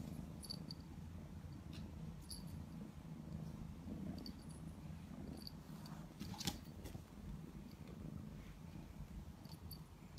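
Domestic cat purring steadily as its chin and neck are rubbed, a faint low rumble. A few small ticks and one sharper click about six and a half seconds in.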